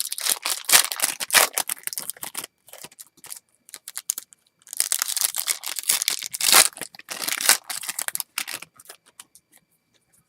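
Foil wrapper of a baseball card pack being torn open and crinkled, in two long spells of crackly tearing, then a few faint light ticks near the end.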